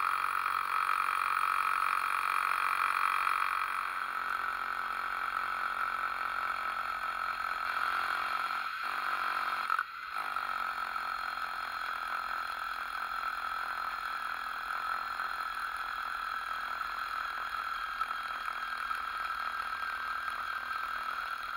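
Electric core drill running steadily as its core bit bores through a brick foundation wall. There is a brief break about ten seconds in, after which it runs a little quieter.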